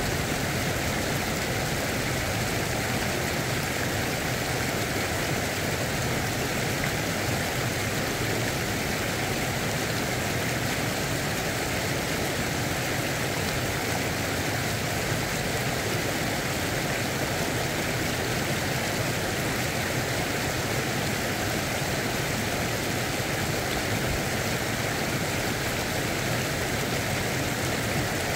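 Steady, unbroken rush of flowing creek water.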